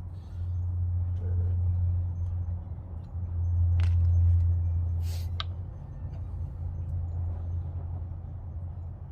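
Low steady rumble that swells for a second or two about halfway through, with a few sharp clicks near the middle.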